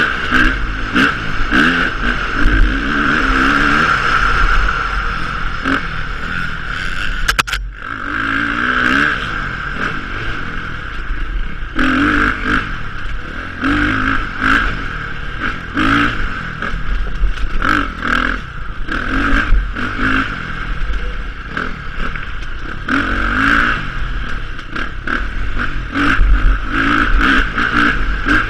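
A KTM 350 XCF-W dirt bike's four-stroke single-cylinder engine is ridden hard, its revs rising and falling continually, with frequent knocks and clatter from the bike over rough ground. The engine briefly drops away about seven and a half seconds in.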